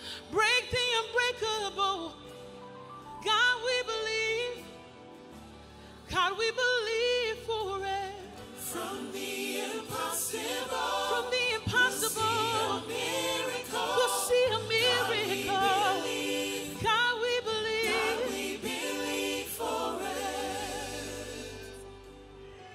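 Live gospel worship music: singers holding long, wavering notes over a church band's sustained chords, with cymbal washes building in the middle.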